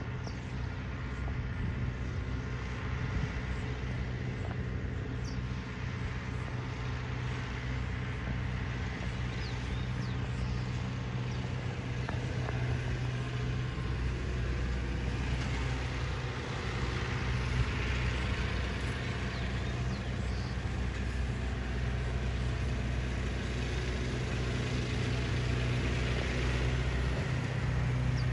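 A steady, low mechanical hum of a running engine or machinery at a distance, holding an even pitch throughout, over open-air background noise.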